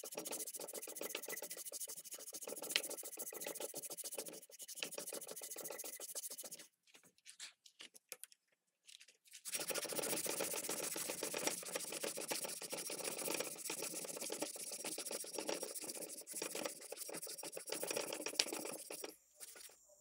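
Fast, continuous scraping strokes of an abrasive worked along a steel knife blade clamped in a bench vise, hand-finishing the blade. The strokes stop about six and a half seconds in, resume about three seconds later, and stop again just before the end.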